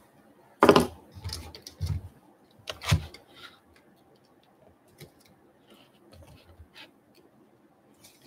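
Handling noises as card boxes and their packaging are picked up and worked off-camera: a few sharp crackling rustles with dull knocks in the first three seconds, the loudest about a second in and near three seconds in, then lighter scattered ticks.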